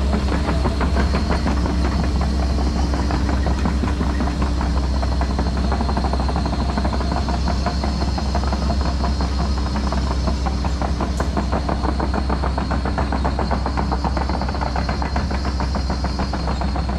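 Tracked excavator's diesel engine running steadily under work, with a fast even throb and a thin high whine over a deep rumble.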